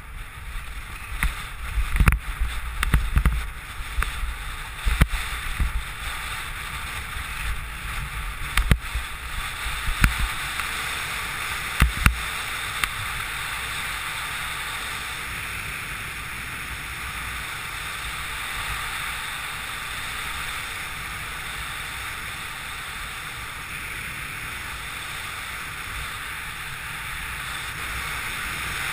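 Airflow rushing over the camera's microphone during a speedriding flight on skis. Irregular low thumps and buffets in the first twelve seconds, then an even, steady rush.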